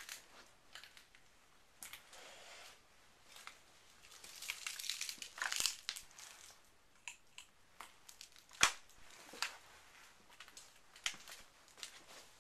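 Irregular crunching and crackling as someone moves about among debris, with scattered clicks and a louder stretch of crunching near the middle. One sharp knock comes about two-thirds of the way through.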